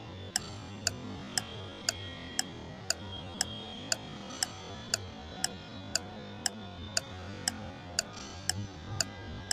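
Steady clock-like ticking, about two ticks a second, with faint held musical tones underneath: a ticking background music track.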